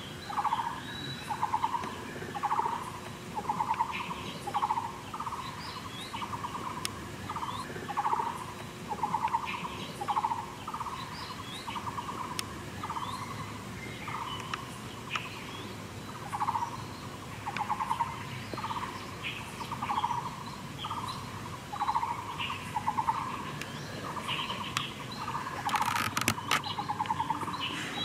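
Outdoor animal calling: a steady series of short, buzzy calls repeating about three times every two seconds, with faint bird chirps higher up.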